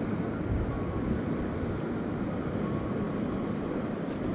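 Steady rushing noise of a flowing river, with no distinct events standing out.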